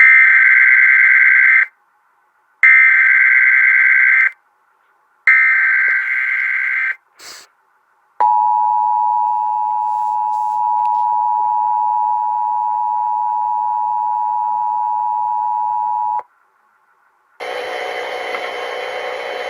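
Emergency Alert System signal opening an AMBER Alert: three bursts of buzzy SAME header data tones, each about a second and a half, then the two-tone EAS attention signal, a steady dual-pitched tone held for about eight seconds. A couple of seconds of hiss follow near the end.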